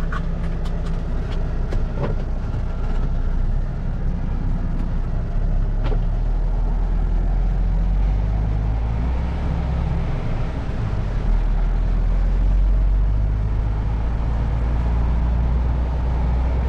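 Diesel engine of an articulated HGV heard from inside the cab, running under way with a steady low drone that shifts in pitch several times. A few sharp clicks in the first couple of seconds.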